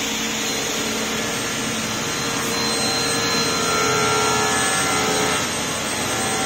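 Sliding table panel saw running steadily as its blade cuts through a wooden panel; the sound swells about three and a half seconds in and eases back shortly before the end.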